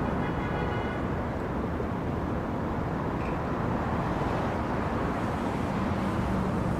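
Tornado wind rushing and buffeting a phone's microphone in a steady, unbroken noise.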